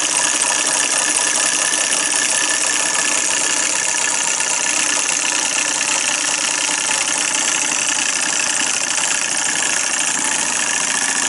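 Empire B33 electromagnetic solenoid toy engine running steadily: a loud, even, noisy mechanical sound with several steady tones running through it.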